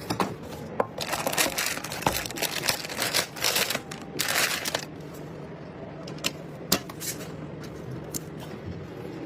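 Clicks, taps and crinkling rustles from hands handling PC parts during a build, dense for a few seconds near the start and then thinning out to scattered clicks over a faint steady hum.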